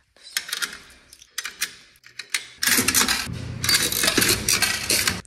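Metal coin slide of a coin-operated Maytag laundry machine clattering with coins as it is worked by hand: a few separate rattles, then a longer dense metallic clatter that stops sharply near the end.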